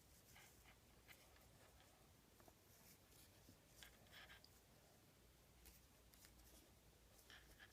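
Near silence with faint, scattered rustles and scratches of paracord being handled and pulled tight while tying a cobra weave.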